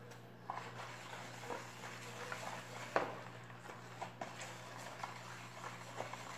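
Small knocks, clicks and light rustling from handling a plastic tub of liquid homemade soap and a plastic-lined loaf mold, with one sharper knock about three seconds in; near the end a spatula stirs the soap in the tub.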